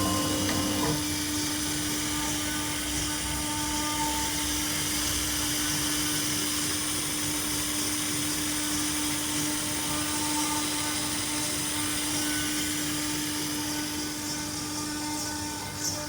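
CNC router and CO2 laser combo machine running steadily at work on stone: a steady, even hum with a high hiss, and no change in pace.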